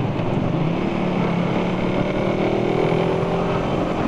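Suzuki Satria F150 fuel-injected single-cylinder engine pulling under way, its note rising gradually as the motorcycle speeds up, with wind noise on the microphone.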